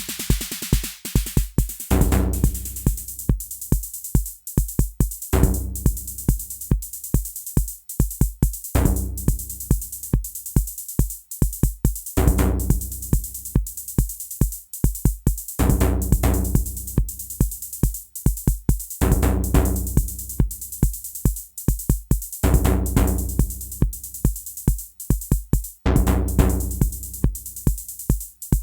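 Modular synthesizer electronic music: a DIY TR-606-style analogue drum machine playing a steady sequenced pattern of bass drum and hi-hat hits, triggered by a trigger sequencer, under a swelling synth phrase that repeats about every three and a half seconds.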